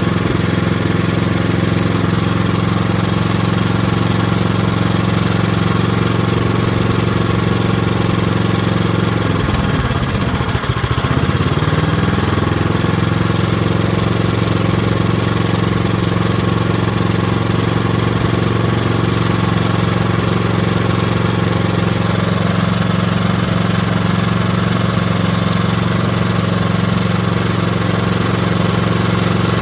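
Craftsman snowblower's 123cc four-cycle overhead-valve engine running steadily; about ten seconds in its speed dips briefly and then picks back up. It runs but the revs won't come up, which the owner puts down to a carburettor issue.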